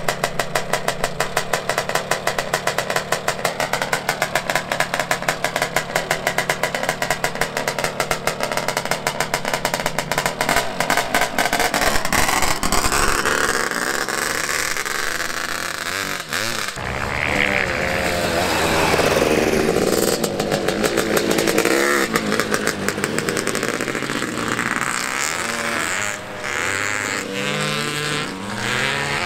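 700cc two-stroke Zabel-engined dirt bike running, first at a fast even idle with some revving, then pulling away hard a little past the middle and riding off, its revs rising and falling. The engine has been warmed up by a first couple of laps.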